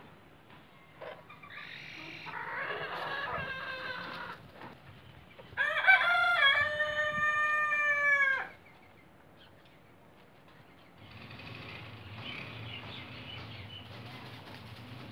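A rooster crows once about six seconds in, a long loud call that drops in pitch at its end. It is preceded by a rougher, quieter chicken call from about two seconds in. From about eleven seconds in, a low steady rumble comes in under it.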